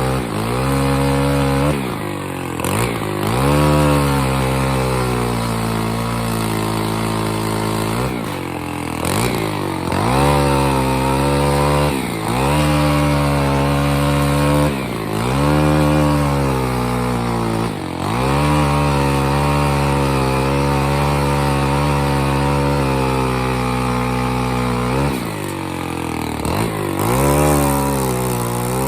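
Two-stroke chainsaw running hard, its engine pitch dropping and revving back up every few seconds as the throttle is eased and squeezed again during tree trimming cuts.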